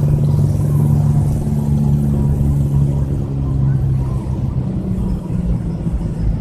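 An engine running at a steady speed over a low rumble, its hum easing a little about halfway through.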